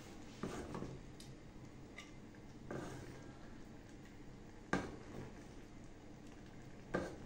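Wooden spoon scooping thick green gram stew from a metal pot onto a plate: faint scraping and soft plops, with two sharper knocks of the spoon, one about halfway through and one near the end.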